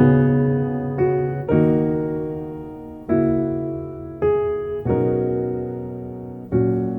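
Background music: a slow piano piece, chords struck and left to ring and fade, a new chord every second or two.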